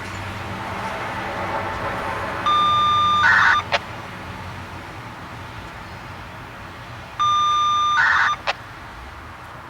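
Radio scanner sounding FSK data bursts twice, about four and a half seconds apart. Each is a steady beep of nearly a second, then a short buzzy burst, then a sharp click as the squelch closes. Under them a fainter rushing noise fades away over the first few seconds.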